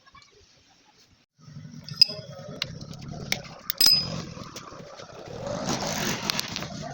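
Small motorcycle engine starting about a second and a half in and running, with several sharp metallic clinks over it and a louder stretch near the end.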